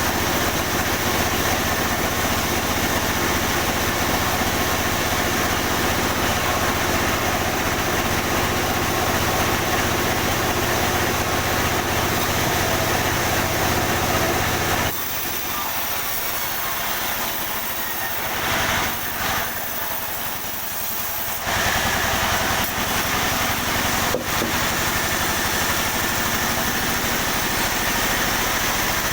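Sawmill machinery running steadily while pine timber is sawn. About halfway through, the low drone drops away for around six seconds, then the full sound comes back.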